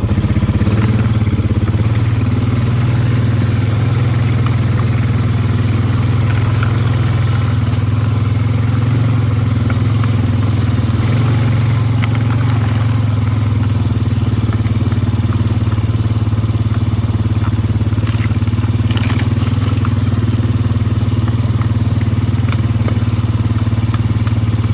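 ATV engine running steadily while riding slowly along a farm trail, with a few light clicks and scrapes over it.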